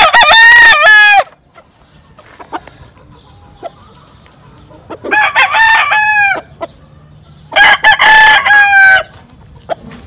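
Gamecock roosters crowing: three loud crows, each a second or so long, one right at the start, one about five seconds in and one about seven and a half seconds in. Faint clicks fall between them.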